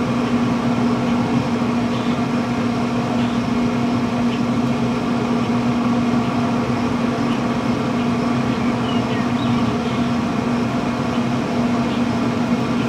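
Traeger pellet grill running on its smoke setting: a steady mechanical hum from its fan, with one constant low tone.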